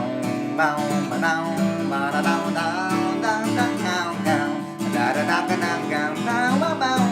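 Instrumental break in a country song: strummed acoustic guitar under a lead instrument playing a wavering, gliding melody.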